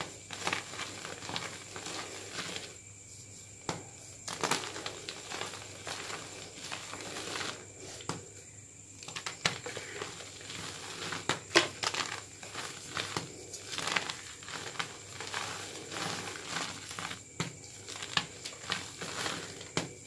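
Plain gym chalk blocks crushed and crumbled between bare hands: dry crunching and crackling as the chunks break apart and the powder grinds between the palms. Irregular sharp snaps come throughout, the sharpest just past the middle.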